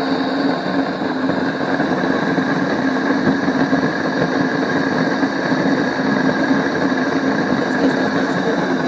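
Salzburg Amadea electric stone grain mill running steadily: a motor hum under the grinding of grain between the millstones. The stones are set so fine that the flour no longer flows out, and the setting is being turned slowly toward coarse.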